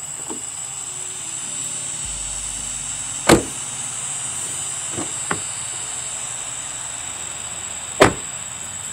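Toyota Prius car doors being opened and shut: two solid slams about five seconds apart, with a couple of light latch clicks between them.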